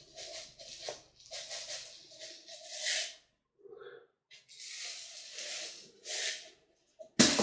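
Water sprinkled from a hand-held plastic watering bottle onto bonsai soil mixed with lava granules: repeated hissing spurts of half a second to a second each, with short gaps. A sudden loud knock or clatter comes right at the end.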